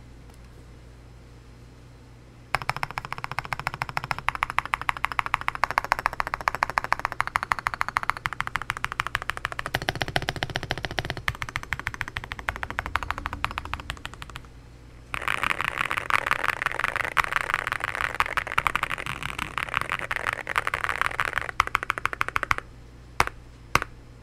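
Fast typing on an Akko MU01 mechanical keyboard (walnut wooden case, gasket-mounted, stock Akko V3 Piano Pro switches and MOA-profile PBT keycaps), with a thocky sound. It comes as a dense run of keystrokes starting a couple of seconds in, a short pause, a second run, then a few single keystrokes near the end.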